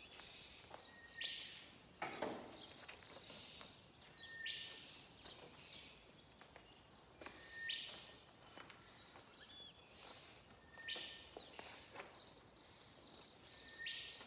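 A bird repeating a short call about every three seconds: a brief note and then a raspy buzz. Faint clicks and scrapes of rusty barbed wire being wound onto a wire ball come in between.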